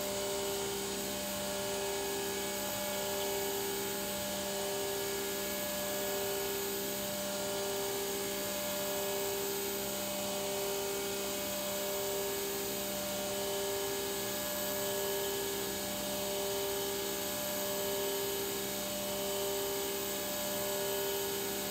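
CNC machining-centre spindle thread milling a hole with a single-row disc thread mill. It makes a steady whine with a second tone that swells and fades evenly about once every 1.2 seconds as the cutter works round the hole.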